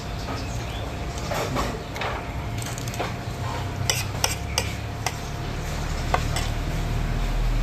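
Spoon and fork clinking against a plate now and then, a handful of sharp clicks over a steady low hum.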